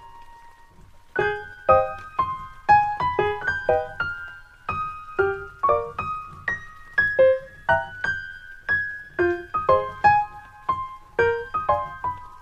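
Background piano music: a gentle melody of struck notes and small chords. It starts again after a pause of about a second at the start.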